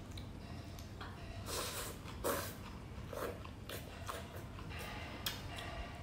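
A person eating hot rice noodles close to the microphone, slurping and chewing, with several short breathy slurps.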